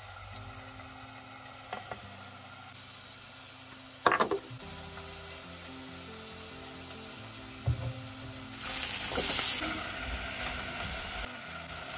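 Food frying in hot oil in a pot on a gas stove: a loud burst of sizzling about two-thirds of the way in as ginger and garlic go into the oil, settling into steady sizzling. A sharp knock of kitchenware about a third of the way in, and soft background music.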